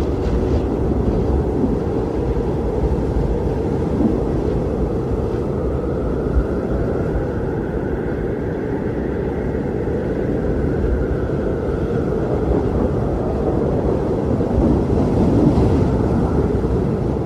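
Strong wind blowing: a steady low rush with a faint whistle that rises and falls partway through.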